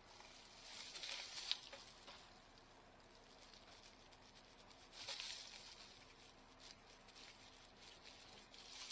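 Faint swishing strokes of a small mini paint roller spreading thin polyester resin along teak trim: one about a second in with a light tick, another around five seconds in, and one more near the end.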